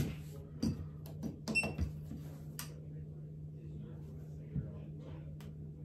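Action of a Pietta 1873 Great Western II single-action revolver being worked for a trigger-pull gauge reading: a sharp click at the start and a series of light mechanical clicks as the hammer is cocked, then a sharp snap of the hammer dropping on a dry fire at the very end.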